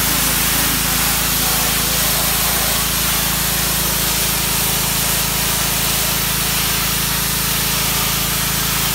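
Ryobi 2900 psi gas pressure washer running steadily, its engine humming under the loud, even hiss of the water jet striking a concrete walkway.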